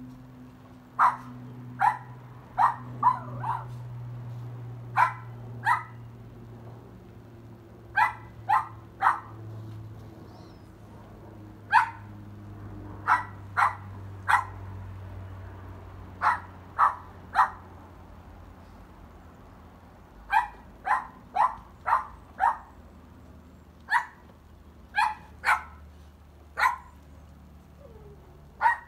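Cavalier King Charles spaniel puppy barking repeatedly: short, sharp barks in runs of two to four, with short pauses between the runs.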